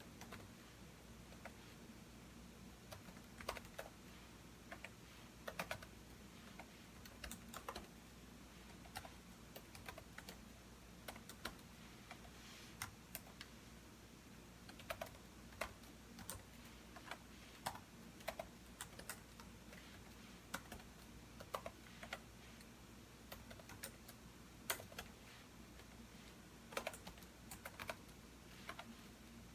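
Computer keyboard being typed on: irregular runs of keystroke clicks broken by short pauses, over a faint steady low hum.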